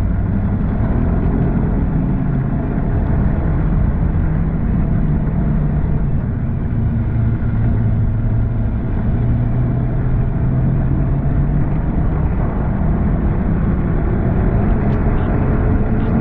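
Snowmobile engine and track running steadily at trail speed, its engine note climbing slightly near the end.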